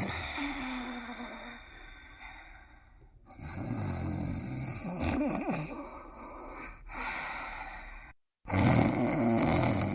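Cartoon characters snoring, in several short clips cut one after another. The sound drops out briefly a little after 8 seconds in.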